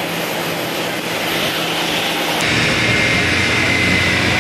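Steady rushing aircraft engine noise, which changes abruptly about two and a half seconds in, taking on a thin steady whine.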